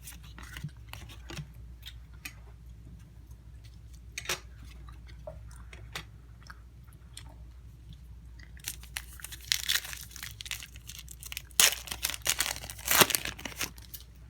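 A trading-card pack's foil wrapper being torn open and crinkled, the crackling loudest from about nine to thirteen seconds in. Before that there are only scattered light clicks and rustles of cards being handled.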